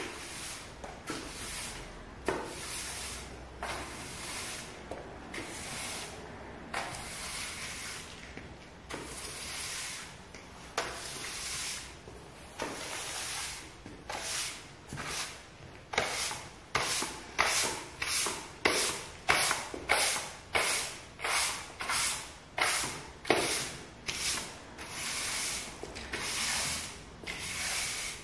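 Long-handled bristle broom sweeping a wooden parquet floor: repeated scratchy strokes, about one a second at first, quickening to nearly two a second from about halfway through.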